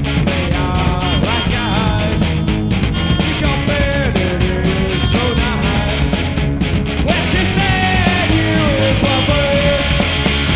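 Punk rock band recording playing: a loud, dense full-band track with a steady drum beat and a gliding melodic line over it.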